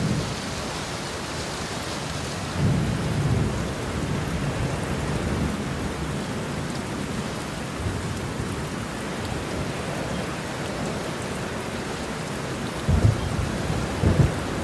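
Steady rain falling, with low rumbles of thunder about three seconds in and again near the end.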